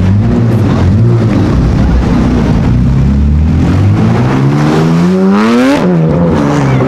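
Sports car engine accelerating hard, its pitch climbing for about two seconds, then dropping abruptly at an upshift near the end and pulling on at a lower pitch.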